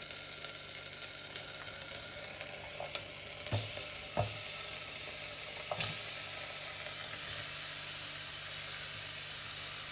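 Hot oil sizzling in a saucepan as sliced onion and grated carrot are tipped in to fry. The sizzle grows louder about three and a half seconds in and again near six seconds, with a few light knocks.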